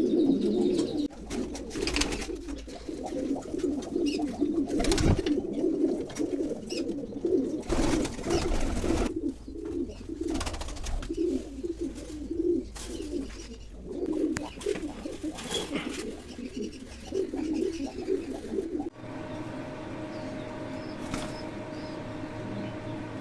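Pigeons cooing in a continuous low, throbbing run, with a few sharp clicks among it. About 19 seconds in the cooing stops and a steady hum takes over.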